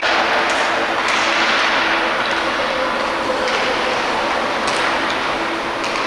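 Ice hockey rink sound during play: skate blades scraping and carving on the ice as a steady hiss, with a few faint sharp clacks of sticks or puck, over a steady low hum.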